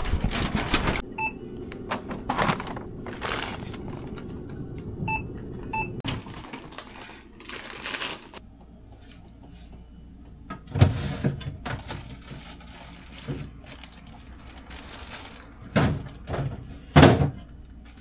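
A few short electronic beeps at a shop checkout over steady room hum. Then, after a cut, refrigerator and kitchen handling sounds: the fridge opened and bottles and containers moved about its shelves, with a few solid thuds in the second half.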